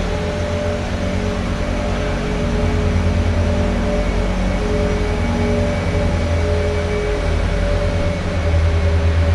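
Ice resurfacer's engine running steadily as the machine drives past close by and moves off up the ice: a low, even hum with a few steady tones in it.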